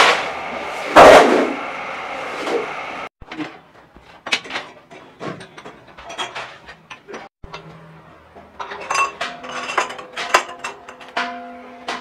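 Sheet steel being handled and cut on shop machines: a loud metallic clatter at the start and again about a second in, then scattered clinks and knocks of metal. A steady low hum comes in about nine seconds in.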